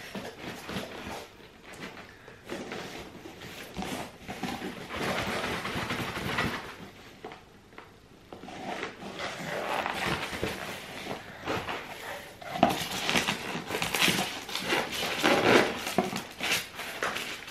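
Cardboard box and packaging being pried and torn open by hand, with irregular rustling, scraping and occasional knocks and clinks, busiest in the last few seconds.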